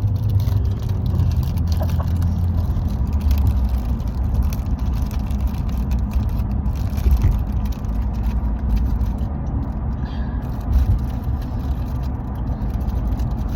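Steady low rumble of a moving car heard from inside the cabin: engine and road noise, with a few small knocks and rattles.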